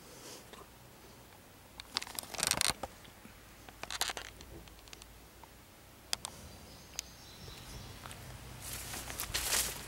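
Handling noise: bursts of rustling and scraping with a few sharp clicks as the camera and hand brush against the bark inside a hollow tree trunk and the leaves at its opening, loudest near the end.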